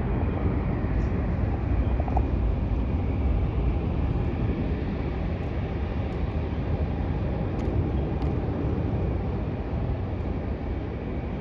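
Steady low rumble of jet airliner engines, with no rise or fall in loudness.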